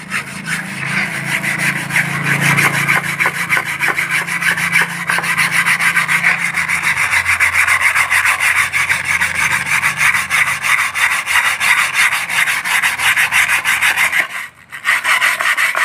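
A wire cup brush scraped back and forth by hand across a wooden cutting board, a steady, fast scratching as it scours black mould out of the wood's surface. It stops briefly about a second before the end, then starts again.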